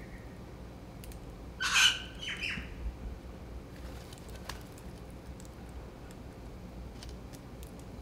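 Crimson rosella giving a harsh squawk about two seconds in, with a couple of weaker squawks just after it. A few faint ticks follow later.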